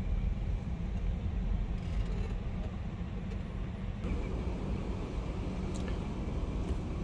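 Steady low rumble of a car running at low speed, heard from inside the cabin. The sound changes abruptly about four seconds in.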